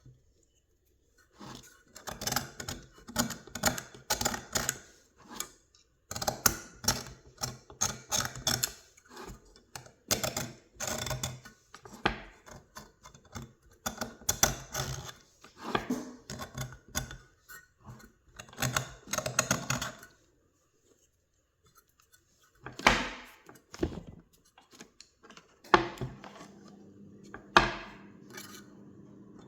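Craft knife blade scraping old adhesive and crumbling foam surround remnants off the edge of a car speaker's frame, in rapid short scratchy strokes with a pause of about two seconds partway through.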